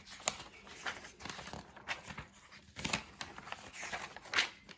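Paper pages of a grid-paper exercise book being leafed through by hand: irregular rustles and flicks of paper, loudest a little after four seconds in.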